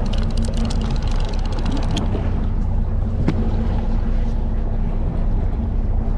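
Boat engine running steadily, a constant low drone with a steady hum. A quick run of light clicks comes in the first two seconds, and a single sharp click follows a little past three seconds in.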